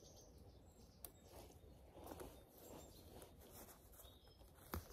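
Very quiet rustling of plants and leaf litter as gloved hands handle snowdrop clumps, with a sharp click about a second in and a louder snap near the end.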